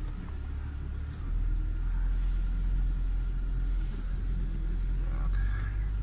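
UAZ Patriot's ZMZ Pro petrol engine running under load as the SUV crawls along a rough forest track in low-range four-wheel drive, heard from inside the cabin. It is a low, steady rumble that gets louder about a second in.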